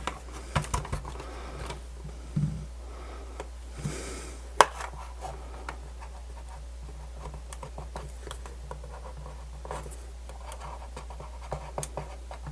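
Scattered small clicks and scratching from the plastic case of a portable radio being handled and pried at during disassembly, with one sharper click about four and a half seconds in.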